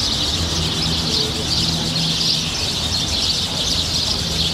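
Dense chorus of many birds chirping at once, a steady high twittering with no pause.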